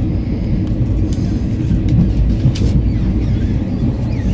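Moving passenger train heard from inside a carriage: a steady low rumble of the running gear on the rails, with a few faint clicks and rattles.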